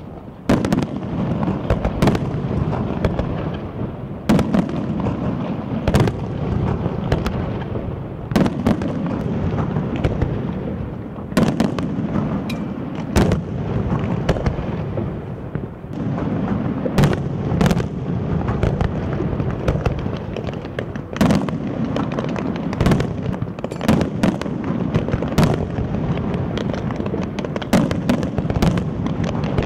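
Aerial fireworks display: many sharp bangs of bursting shells at irregular intervals, sometimes several in quick succession, over a steady low rumble.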